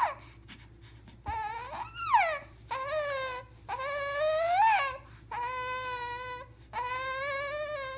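A ten-week-old baby crying in a run of about five cries, each about a second long. The first few rise and fall in pitch; the later ones are held steady.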